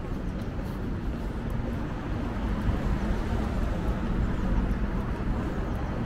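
Outdoor city street ambience: a steady low rumble of traffic.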